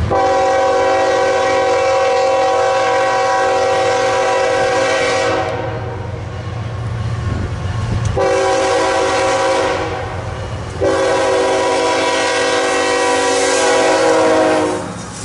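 Diesel freight locomotive's air horn sounding three blasts of several notes at once: a long one, a shorter one about eight seconds in, and another long one that ends just before the close. The passing train rumbles underneath.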